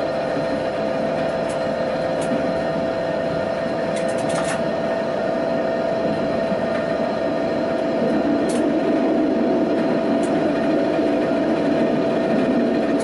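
Tatra T6 tram running at speed, heard from the driver's cab: a steady rumble of wheels on rail with a constant whine over it, a few short clicks about four and eight and a half seconds in, and the rumble growing a little louder from about eight seconds in.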